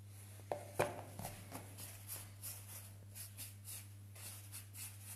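Hands handling a small metal tart tin and pastry on a wooden worktable: a sharp knock about a second in, then a run of faint ticks and rustles, over a steady low hum.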